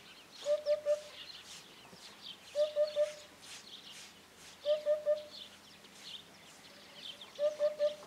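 Eurasian hoopoe singing its low, hollow 'oop-oop-oop': four phrases of three quick identical notes, one phrase every two seconds or so. Higher, thinner chirps of other birds come and go underneath.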